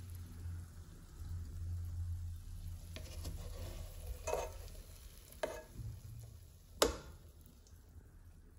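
Meatballs frying in a pan of oil with a faint sizzle, while a slotted spoon scoops through them, scraping and knocking against the pan several times. The sharpest knock comes about two-thirds of the way through, over a low steady hum.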